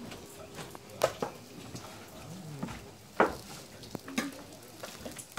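Metal clanks and clinks against a flat iron griddle as roti canai fries on it, over a faint sizzle; the sharpest clank comes a little after three seconds in, with others about one and four seconds in.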